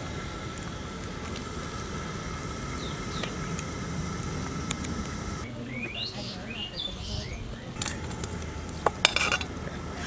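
Steady outdoor background noise; about six seconds in, a bird chirps several times in quick short notes. Near the end come a few sharp clinks of a metal spoon on steel cookware.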